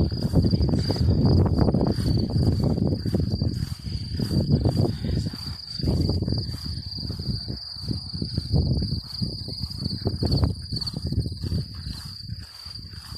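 Insects trilling in one steady, continuous high pitch, with a loud, uneven low rumbling noise that swells and fades underneath.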